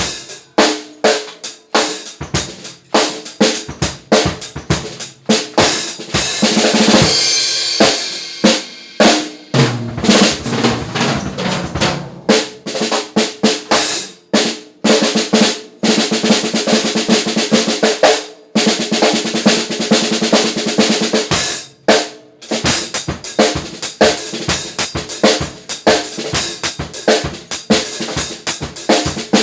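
Drum kit played with the snare drum to the fore: steady strokes and fills on a snare fitted with new lugs, backed by bass drum, with a dense fill about 7 seconds in.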